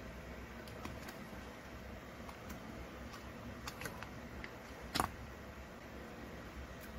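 Faint handling noise as an RC car's electric motor is worked out of its mount on the chassis: small scattered clicks and rubbing of plastic and metal parts, with one sharper click about five seconds in.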